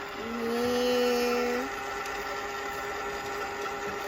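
Eggmazing egg decorator's small electric motor whirring steadily as it spins an egg. A child's drawn-out "yeah" comes over it in the first second and a half.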